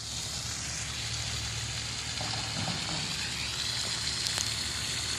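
Steady rushing of water: an even hiss with a low rumble underneath.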